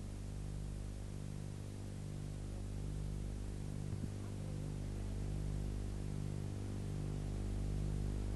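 Steady low electrical hum with background hiss, pulsing slightly, with a faint click about four seconds in.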